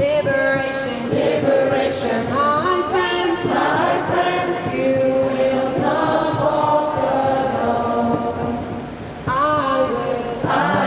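A group of voices singing together, a slow melody with long held notes.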